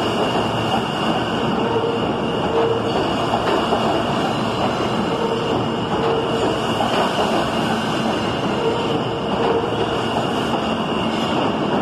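R160 subway train running past close by through an underground station: a loud, steady rumble of wheels on rail with a steady high whine over it.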